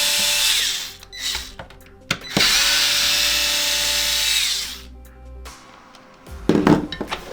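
Electric screwdriver with a T10 bit backing out two screws: it stops shortly after the start, then runs again steadily for about two seconds before stopping.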